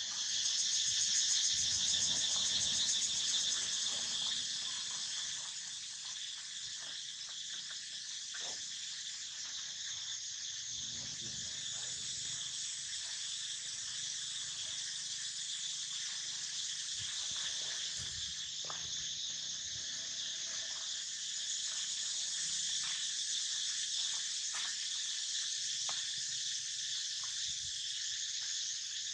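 Steady high-pitched insect chorus, with scattered faint clicks and rustles.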